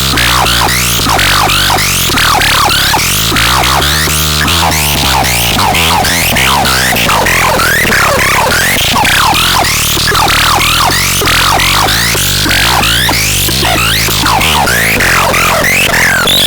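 Loud electronic synthesizer sound in a dubstep-like style: a dense flurry of quick sweeping chirps over a steady low drone.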